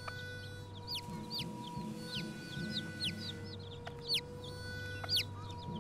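Newly hatched chicks peeping: a scattered series of short, high, falling peeps, with a hen clucking low underneath.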